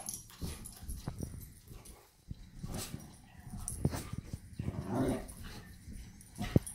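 A Tamaskan puppy and a dachshund play-fighting: scuffling and bumps on the rug, with brief dog vocalizations; the most drawn-out is a short noisy burst about five seconds in.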